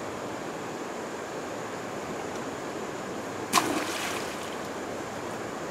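The end of a thick pump suction hose splashes into a stream once, about three and a half seconds in, over a steady rushing background.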